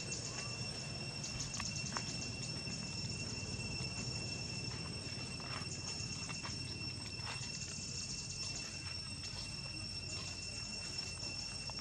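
Steady insect chorus in the background: two constant shrill tones with buzzing trills that pulse on and off every second or two. Scattered light taps and rustles, fitting small monkeys stepping through dry leaf litter.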